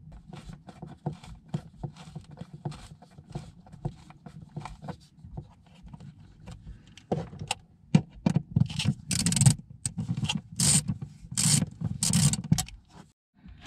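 Screwdriver working at the rusted mounting screws of an old SHURflo RV water pump. Light clicks and taps of metal on metal come first, then a series of loud, harsh scrapes over the last few seconds.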